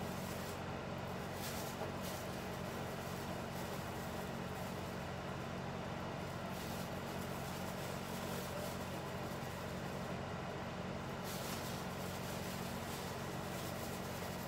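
Steady low mechanical hum from a running motor, even in level throughout, with a faint haze above it and no distinct knocks or clatter.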